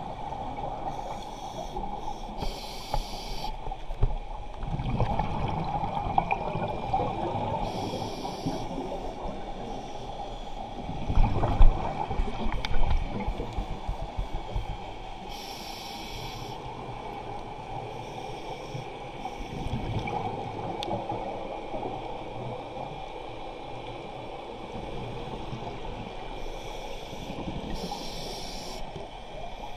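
Scuba regulator breathing heard underwater: short hissing inhalations every several seconds, between them low bubbling rumbles of exhaled air, loudest a little before the midpoint.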